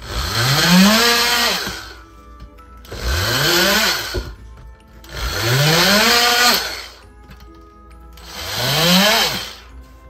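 Cordless power saw cutting into drywall in four short bursts, each one spinning up to speed and winding down again.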